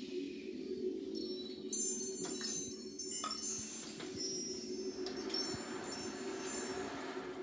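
Wind chimes shimmering, with many high ringing tones coming in about a second in, over a steady low sustained drone of the ensemble.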